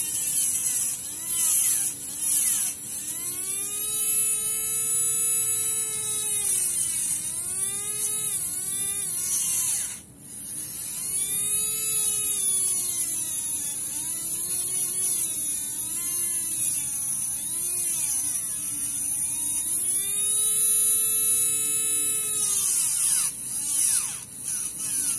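Tamiya Hyper-Dash DC motor in a break-in jig spinning a Mini 4WD propeller shaft gear while a metal file is held against the gear: a high electric whine with a scraping hiss. Its pitch sags and recovers again and again as the file loads the motor, and it dips out briefly about ten seconds in.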